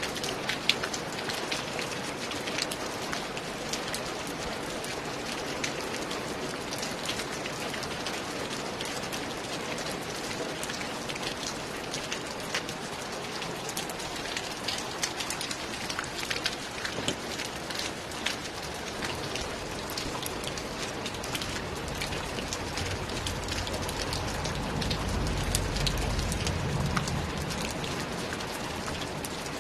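Steady rain, with many individual drops striking sharply and close by. A low rumble swells in near the end and fades again.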